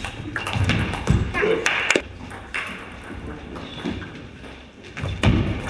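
Table tennis rally: the ball clicking off rackets and table in quick succession for the first couple of seconds, then a few single clicks.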